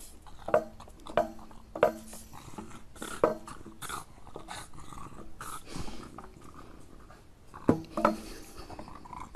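A small dog with a long stick held crosswise in its mouth bumps the stick against the metal bars of a narrow gate: a string of short knocks, most in the first four seconds and two more near the end, with the dog's own sounds heard as well.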